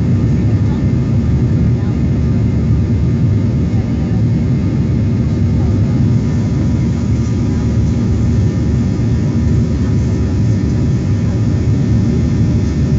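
Jet airliner engines running at climb power after take-off, heard from inside the passenger cabin as a steady, deep roar.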